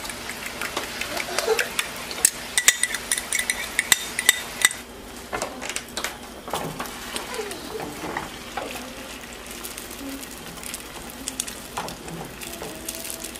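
Beaten eggs sizzling in a hot buttered frying pan, with a spoon clinking and scraping against the bowl as they are poured in over the first few seconds. After that, a steady frying sizzle with soft scrapes as a silicone spatula stirs.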